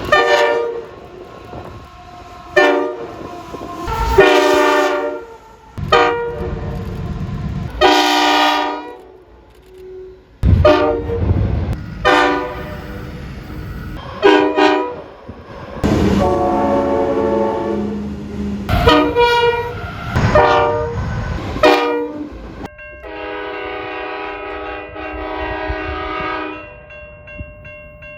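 Train horns sounding in a string of short blasts, each several notes at once, with the low rumble of a train under some of them. Near the end comes one long, steady multi-note horn chord held for about four seconds.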